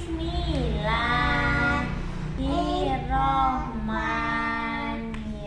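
A woman and a small child singing together in long held notes, the opening of a sung prayer before eating.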